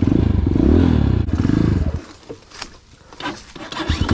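A 250cc dirt bike engine revving hard in surges under the throttle, its pitch rising and falling. About halfway through it drops off sharply to a much quieter low run, with a few sharp clicks and scrapes from brush against the bike, then revs up loudly again near the end.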